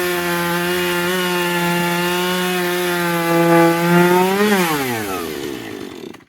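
Two-stroke chainsaw running steadily at high revs, cutting wood. About four and a half seconds in the engine note falls steadily in pitch as it winds down, and it stops just before the end.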